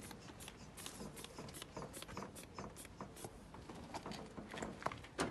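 Faint, irregular small clicks and scrapes of a hand-pumped air wedge and a long-reach rod being worked in a van's door gap, with one sharper click near the end.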